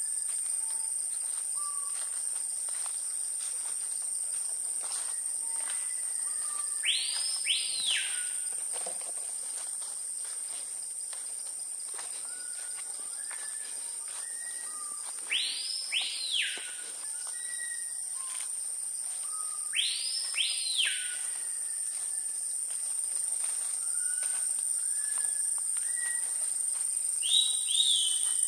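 Tropical forest insects making a steady high drone, with a bird giving short soft whistles and, three times, a pair of loud whistles that sweep up and fall away.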